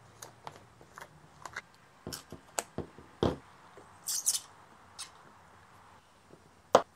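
Plastic screw lid twisted off a mayonnaise jar, then a metal spoon scooping thick mayonnaise out of the jar: scattered small clicks and taps of the lid and the spoon against the jar, with a brief scrape about four seconds in.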